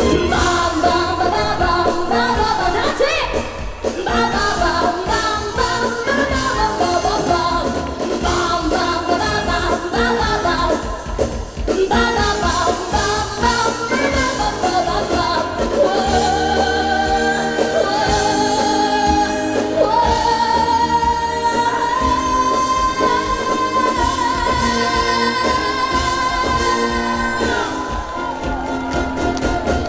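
A woman singing a trot song live over a band backing with a steady beat. In the second half she holds one long high note that wavers into vibrato as it ends.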